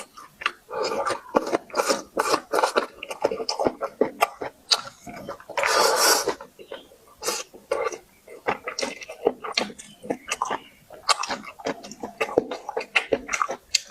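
Close-miked chewing and mouth smacking of food, with many short wet clicks, and a loud noisy burst lasting about a second around six seconds in.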